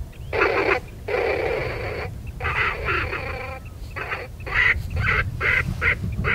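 Repeated pitched animal calls in bursts: a longer call about a second in, then shorter calls coming about two to three a second toward the end. Underneath is a steady low rumble of wind on the microphone.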